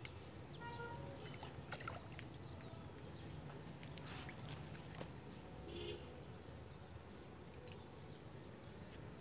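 Faint outdoor ambience by a pond: a low steady rumble with a few faint clicks and brief faint calls.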